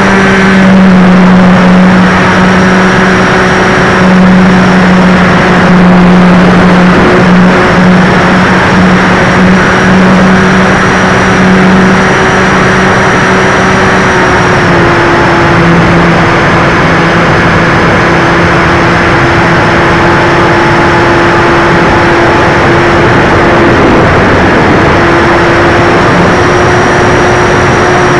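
Hype Cessna 400 Corvallis RC model plane's motor and propeller, heard from a keychain camera on its tail: a steady drone over a loud rush of wind, its pitch dropping slightly about halfway through and rising again near the end.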